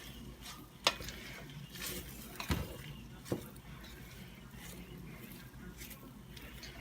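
Pasta and chicken being stirred in a pan with pesto and cheese: soft wet squishing, with a few light clicks of the utensil against the pan.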